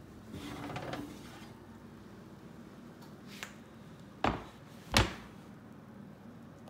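Kitchen handling sounds: a brief rustle near the start, then two sharp knocks less than a second apart a little after halfway, like dishes or cookware being set down.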